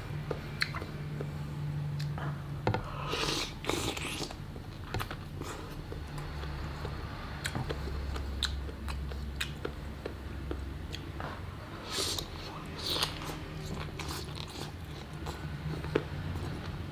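Close-miked eating of Thai-sauced chicken feet and unlaid chicken eggs: chewing and biting with many small scattered clicks, and a few longer noisy sounds about three and twelve seconds in, over a steady low hum.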